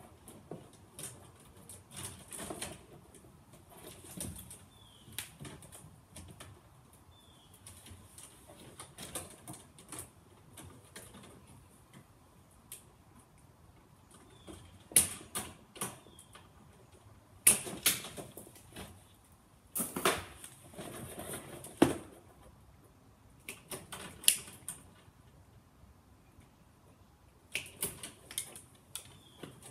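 Irregular clicks, taps and rustling of electrical wires and metal tools being handled inside a residential breaker panel as neutral wires are landed on the neutral bar. The sharpest clicks bunch together in the middle.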